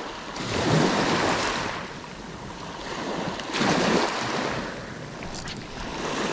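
Sea waves washing onto the shore, swelling and receding twice about three seconds apart.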